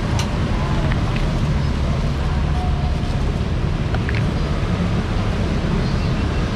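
Steady low rumble of street traffic, with a few faint light clicks.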